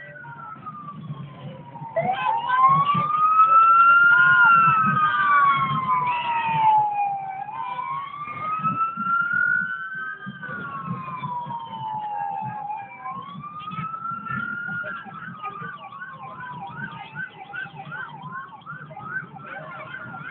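A siren wailing, its pitch rising and falling slowly every few seconds, loudest a few seconds in, then switching to a fast yelp near the end.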